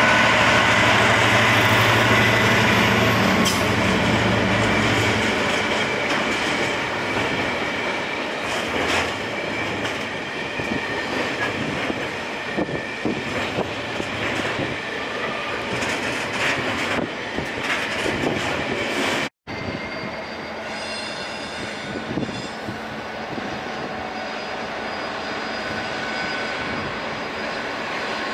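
GB Railfreight Class 66 diesel locomotive's two-stroke V12 engine running as it passes at the head of a container freight train, then the container wagons rolling by with wheels clicking over rail joints. After a brief dropout about two-thirds of the way through, the sound drops to a quieter, steady background rumble.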